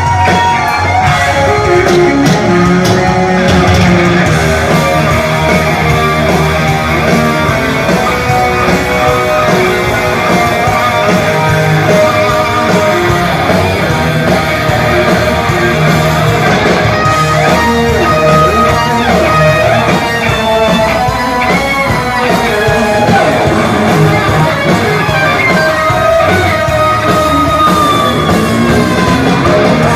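Heavy metal band playing live, an instrumental passage led by electric guitar with sliding, bending notes over bass and drums, with no singing.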